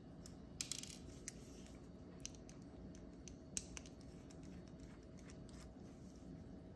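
Faint, sparse clicks and light taps of small plastic and metal camera parts being handled, with a precision screwdriver working on a small circuit-board assembly: a short cluster of clicks about half a second in, a few single ticks after, and a sharper click a little past the middle.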